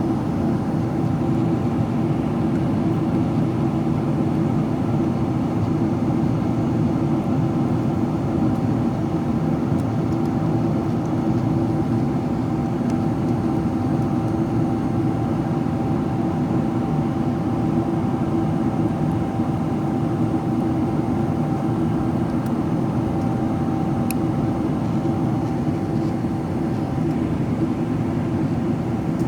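Steady cabin noise of a Boeing 777-300ER in descent: the rush of airflow and the GE90 engines heard from inside the cabin. A thin steady tone runs through it and fades out near the end.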